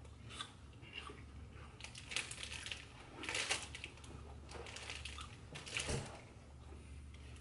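Crunchy chewing of McDonald's apple slices close to the microphone, a few separate crunches over a few seconds, over a steady low hum.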